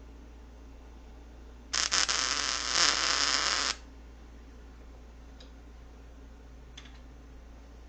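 Wire-feed (MIG) welder arc laying a short bead: it sputters on as the arc strikes, crackles for about two seconds, then stops abruptly. Two faint clicks follow.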